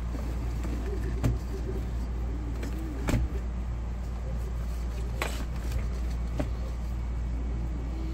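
Stepper motors of a CNC 3018 Pro desktop router whine briefly twice, each time rising and falling in pitch as an axis jogs, over a steady low hum. A few light clicks and knocks come from handling the machine.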